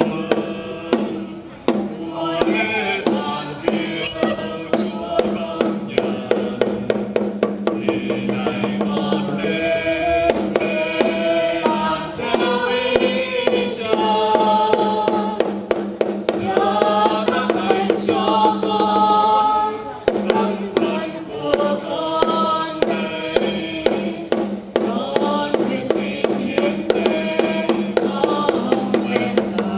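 Sung religious music: a slow vocal melody over a held low drone, with a steady percussive beat of about two strikes a second.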